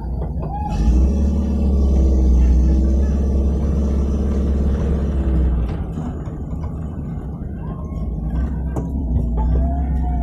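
Off-road jeep engine running with a heavy low rumble as it drives along a rough dirt track. It is louder for the first half and eases off after about six seconds.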